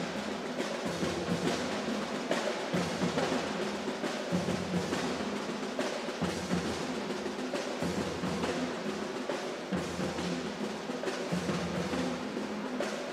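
Youth marching band playing: brass section holding sustained notes, with a deep bass line shifting every second or two, over snare drum rolls and bass drum strokes.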